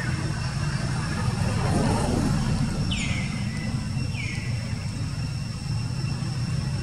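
A steady low rumble like a motor vehicle's engine idling, with two short high chirps that fall in pitch about three and four seconds in.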